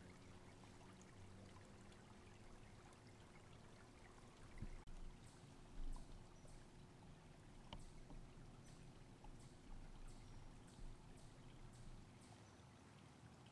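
Near silence: faint running water of a creek in the background, with two soft low thumps about a third of the way in and a scatter of light, high ticks over the second half.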